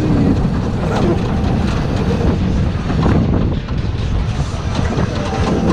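SBF Visa family roller coaster train running round its steel track, heard from the back car: a steady rumble of wheels on the rails with scattered clicks and rattles.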